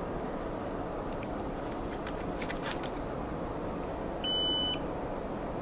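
A single short, high electronic beep about four seconds in, over a steady background noise.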